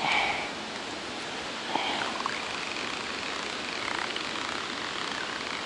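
Steady outdoor rushing noise of wind and flowing river water, with a short louder sound right at the start and faint snatches of distant voices.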